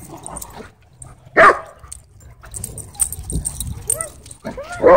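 Dogs barking during play: one loud bark about a second and a half in, then a quick run of short barks and yips near the end.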